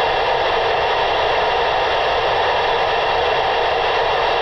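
Steady, loud hiss of static from an FM two-way radio's speaker with the squelch open: the receiver is passing noise between transmissions on a weak simplex contact.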